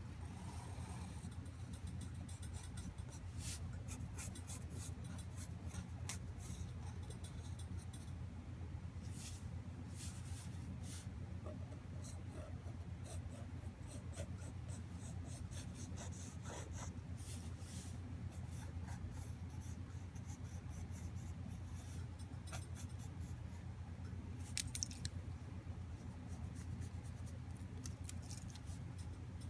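Mechanical pencil scratching on paper in many short, irregular strokes, over a steady low hum.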